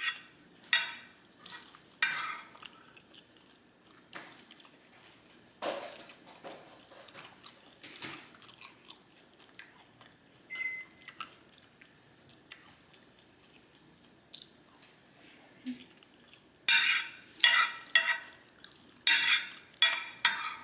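A person chewing mouthfuls of Korean black bean noodles (jjajangmyeon) with onions and beef, with wet chewing and smacking. The smacks come in loud clusters at the start and again in the last few seconds, with quieter chewing between.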